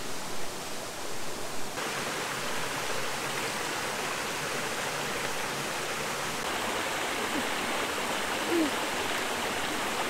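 Stream water flowing in a steady rush, which grows suddenly louder about two seconds in.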